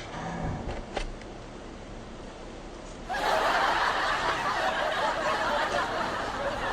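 Laughter, like an edited-in laugh track, starting abruptly about three seconds in and carrying on. Before it there is a quiet stretch with a single click.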